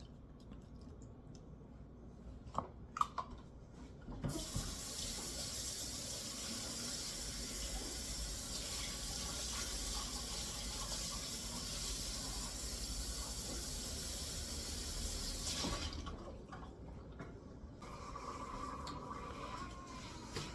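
Water running steadily from a tap for about twelve seconds, coming on a few seconds in and shutting off sharply, after a couple of light clicks.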